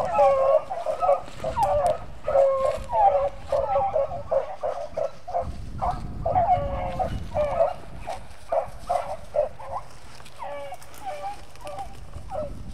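A pack of beagles baying, many overlapping bawls and yelps, the sound of hounds running a rabbit. The baying thins out to a few scattered calls near the end, with wind rumbling on the microphone.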